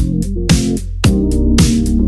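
Electronic background music with a steady beat: deep sustained bass, kick drums that drop in pitch, and sharp hits about twice a second.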